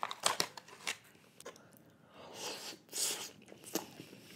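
Quiet eating sounds as a mouthful of mac and cheese is taken: scattered soft mouth and utensil clicks, with two short hissy swells a little past halfway.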